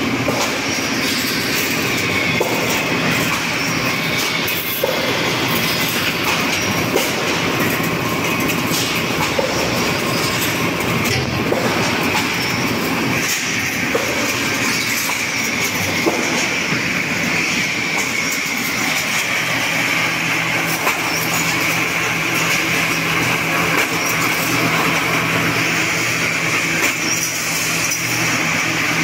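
Wire straightening-and-cutting machine running on galvanised wire, drawing it off the coil: a steady metallic rattle with a high whine, and occasional sharp clicks.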